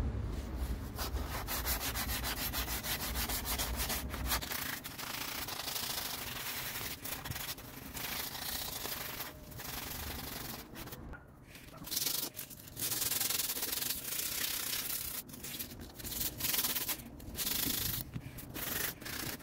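Sandpaper rubbed by hand in rapid back-and-forth strokes over the rusty metal tube of a motorcycle engine guard, scraping off the rust, with a few short pauses.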